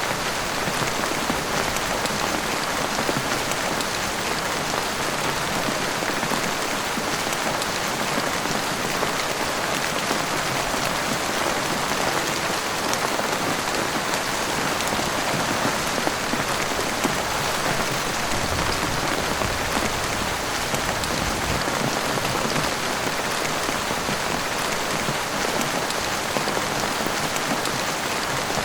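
Heavy rain falling steadily and evenly, without a break.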